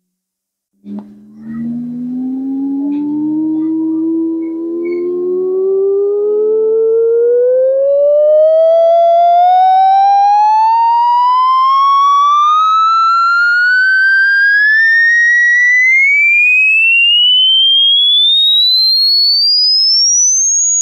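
Test tone from a frequency generator sweeping steadily upward in pitch, from a low hum to a high whistle, starting about a second in. It is the sweep of a hearing-range test, climbing toward the top of the audible range.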